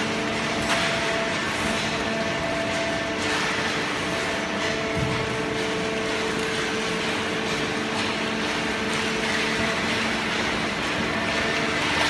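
Semi-automatic horizontal hydraulic paper baler and its inclined infeed conveyor running: a steady machine drone with several held tones over a hiss of noise.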